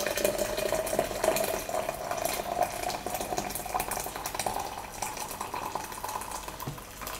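Hot water poured in a steady stream from a kettle into a glass cafetiere, preheating the glass. The pitch of the filling slowly rises as the cafetiere fills, and the pour stops near the end.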